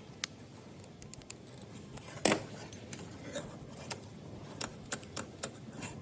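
Sharp clicks and light clatter from a car door latch mechanism being handled and fitted together by hand. The loudest click comes a little over two seconds in, with a quick run of clicks near the end.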